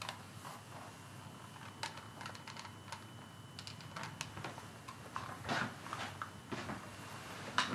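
Scattered small clicks and taps from a handheld portable cassette tape recorder being handled and its buttons pressed.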